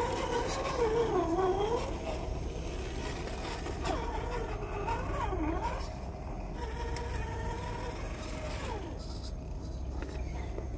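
Electric motor and gearbox of a 1/10-scale RC rock crawler whining as it climbs over rock ledges. The pitch rises and falls with the throttle, holds steady for a moment past the middle, then drops away.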